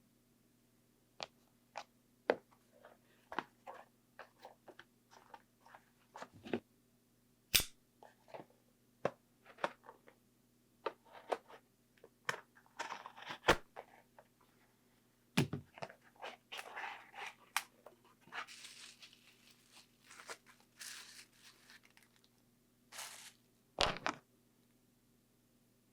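Small tools and camera parts being handled during a camera tripod-mount repair: irregular clicks, taps and short scrapes, three louder knocks, and a few brief rustling, scraping stretches. A faint steady hum runs underneath.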